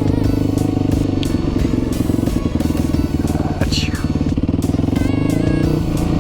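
Yamaha WR450F dirt bike's single-cylinder four-stroke engine running under way, its pitch rising a little near the end.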